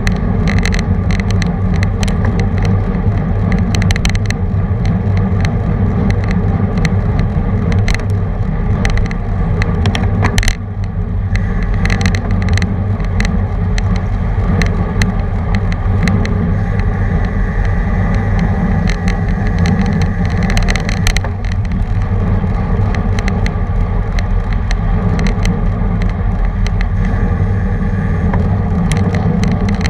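Wind rushing over a bike-mounted camera's microphone together with road and tyre rumble from a road bicycle riding at race speed, with scattered sharp clicks and knocks from the bike and mount.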